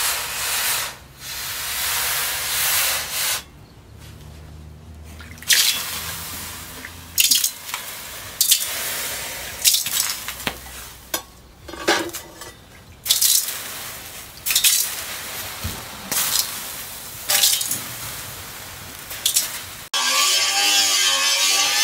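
Hot forged steel blade, made from a tractor disc-plough disc, being quenched in a stone trough of water: a hissing sizzle of steam for the first few seconds, then sharp splashes every second or two as water is splashed over the blade, with drips between. Music cuts in near the end.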